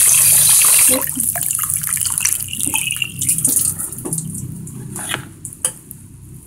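A stream of water splashing into a plastic tub, cut off abruptly about a second in, followed by scattered drips and a fading trickle as the water settles.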